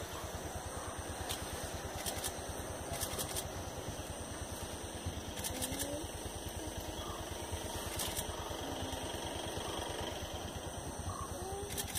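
Vehicle engine idling with a steady low, even throb, with a few sharp clicks over it.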